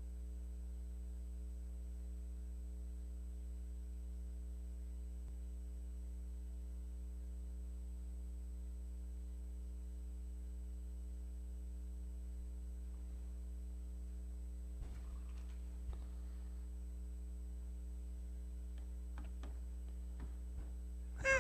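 Steady electrical mains hum with a ladder of overtones, with a few faint clicks in the last several seconds.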